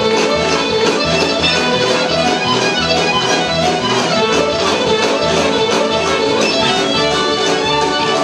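Live fiddle with a full band behind it playing a country fiddle tune over a steady bass beat.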